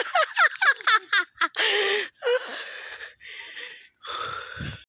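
Laughter: a quick run of short ha-ha bursts in the first second or so, then breathy, gasping laughs. A low thump comes near the end.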